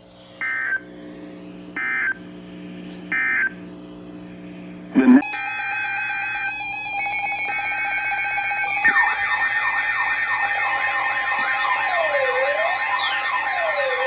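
Emergency Alert System data tones: three short beeps about a second apart mark the end of the message. About five seconds in, a louder electronic alert tone starts. From about nine seconds in, siren-like sweeps rise and fall over a steady tone.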